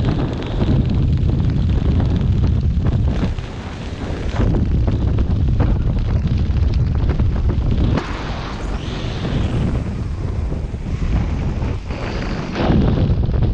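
Airflow buffeting an action camera's microphone during a descent under an open parachute canopy: a loud, low rumble that swells and eases, dipping briefly about three, eight and twelve seconds in.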